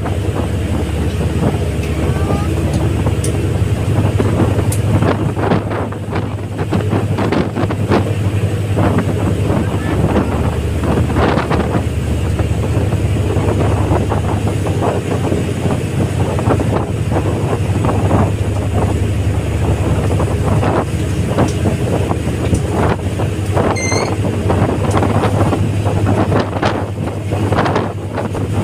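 RoRo ferry's engines droning steadily in a low hum, with wind buffeting the microphone in irregular gusts.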